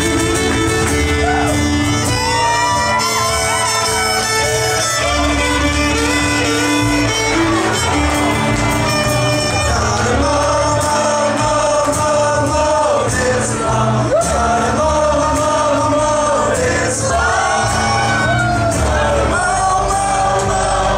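Live string band playing a song: bowed fiddle, strummed acoustic guitars, upright bass and drums, with loud singing and shouted vocals over it.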